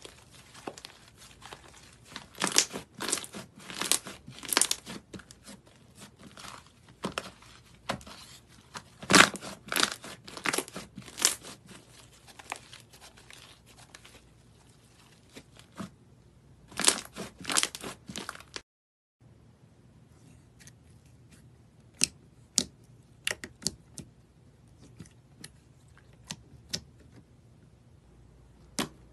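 Hands squeezing and stretching thick slime, which makes sharp crackling clicks and pops as trapped air bursts. The pops come in dense clusters at first, then after a brief break about two-thirds of the way through they turn sparse and single.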